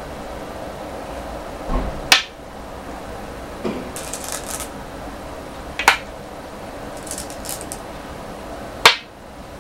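Go stones clacked down on a wooden go board, three sharp clacks about 2, 6 and 9 seconds in, with softer clinking of stones in a bowl between them.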